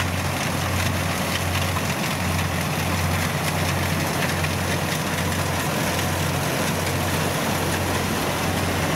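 Kubota DC70 rice combine harvester running under load while cutting rice: a steady low diesel drone with a slight throb, under a constant mechanical rush from the cutting and threshing machinery.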